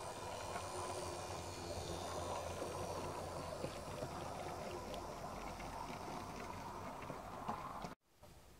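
A 16mm-scale IP Engineering tram locomotive with a Swift Sixteen electric motor and gearbox running slowly, hauling empty goods wagons that rattle along the track, with a few light clicks from the wheels. The sound cuts off sharply near the end.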